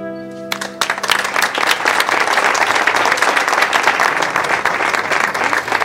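Audience applauding, breaking out about half a second in as the last held chord of a song dies away.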